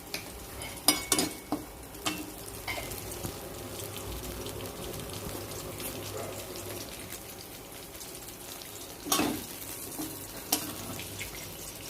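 Whole spices for a tempering (bay leaves, dried red chillies and panch phoron) sizzling steadily in hot oil in a pan while being stirred, with a few knocks from stirring, the loudest about nine seconds in.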